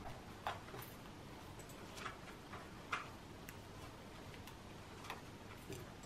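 Faint, irregular sharp clicks and light ticks, several seconds apart at most, as a cockatiel forages in shredded paper bedding, picking through it for seeds.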